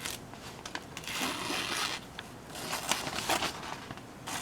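A thin-edged W2 steel chopper blade slicing through phone book paper in about three strokes, each a short papery swish.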